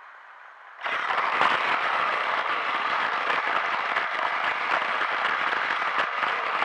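Plarail battery-powered toy train starting off about a second in: its motor gearbox and wheels on the plastic track make a sudden, dense, steady rattling whir, heard close up from a camera riding on the train.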